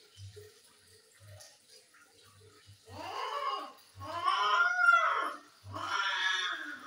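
A cat yowling during mating: three long, drawn-out yowls, each rising and then falling in pitch, the middle one the loudest.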